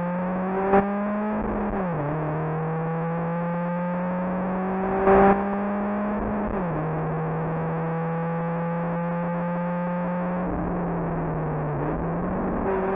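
Rally car engine heard from inside the cockpit, accelerating hard through the gears: its pitch climbs slowly and drops sharply at an upshift about two seconds in, again near the middle and once more near the end. Three brief louder bursts stand out over it.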